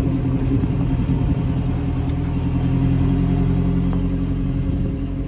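Pickup truck engine running steadily as the truck drives slowly along a gravel dirt trail.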